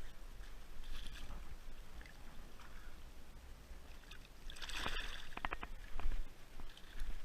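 River water sloshing and rippling. About five seconds in there is a louder noisy burst, followed by a short run of quick clicks.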